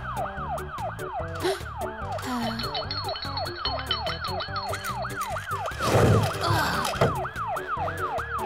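Ambulance siren yelping fast, about three to four rising-and-falling sweeps a second, over cartoon background music with a bass line. A loud rushing burst cuts in about six seconds in, and a shorter one follows about a second later.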